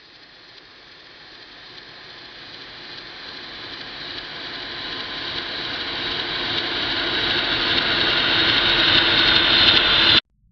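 A long riser sound effect: a hissing noise with faint steady bands that swells steadily louder for about ten seconds, then cuts off abruptly.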